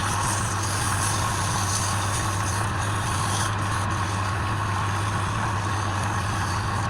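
Woodturning lathe motor running steadily, a constant low hum with an even whir above it.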